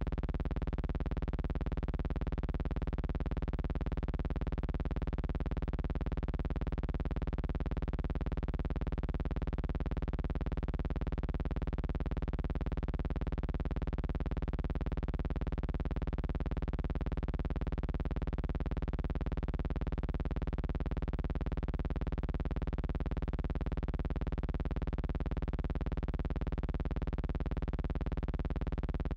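A steady, unchanging buzzing hum that does not vary at all, with a strong low drone and a buzzy edge. It stays the same through every change of picture, so it is noise on the soundtrack and not the aircraft engines.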